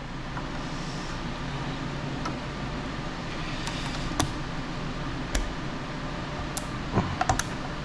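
Several sharp plastic clicks, about six in the last four seconds, as a stock Intel CPU heat sink is pressed onto a motherboard, its push-pins snapping into place, over a steady room hum.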